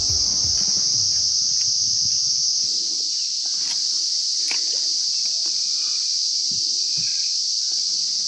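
A steady, high-pitched insect chorus buzzing without a break. A few faint clicks sound over it, and low background sounds stop about three seconds in.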